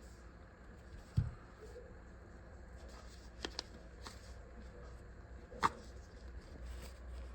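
Hand tools being handled: a low thump about a second in, then a few small clicks and one sharp click about three quarters of the way through.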